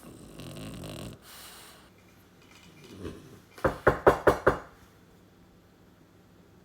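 French bulldog snorting and huffing, then a quick run of five short, loud, gruff barks about four seconds in.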